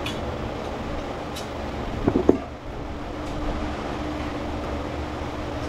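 A steady machine hum with a few light clicks and a short knock, with a little ringing, about two seconds in.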